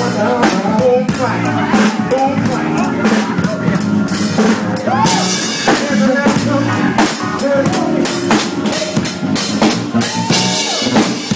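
Live band jamming: a drum kit plays a busy groove of kick, snare and rimshot hits under sustained chords and a melody line that bends in pitch.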